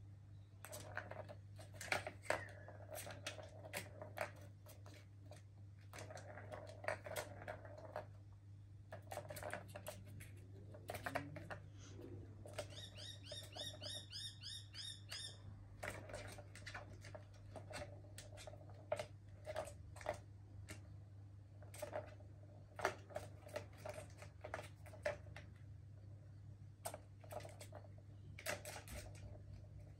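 Plastic balls rolling and rattling around the track of a cat ball-tower toy, with irregular sharp clicks and taps as kittens bat the balls and paw the plastic.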